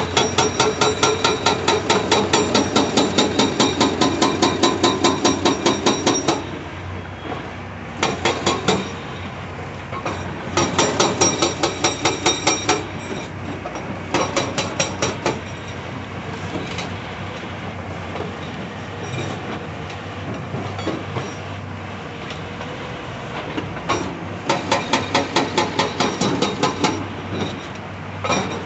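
Hydraulic breaker on a CAT 349E excavator hammering rock in rapid, evenly spaced blows, in bursts of one to several seconds: the longest opens the clip, several shorter ones follow, and another starts near the end. Between bursts the excavator's engine keeps running.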